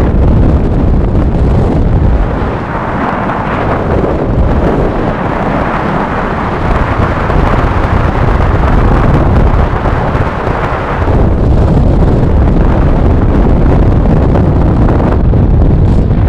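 Wind buffeting the microphone of a camera held out of a moving car's window: a loud, steady rush with a deep rumble.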